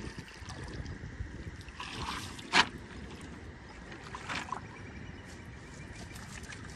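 Water dripping and sloshing as a wet nylon fishing net is hauled over the side of a small wooden boat, with one sharp knock about two and a half seconds in.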